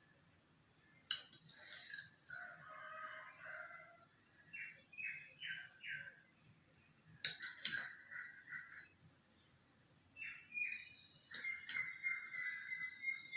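Faint bird calls: a scatter of short chirps, including a quick run of four, with a few sharp clicks in between.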